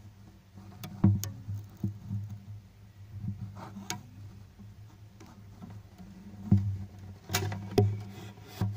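Scattered knocks and rubs from a phone bumping and scraping against the inside of an acoustic guitar's hollow wooden body, a few about a second in and louder ones near the end, over a low steady hum.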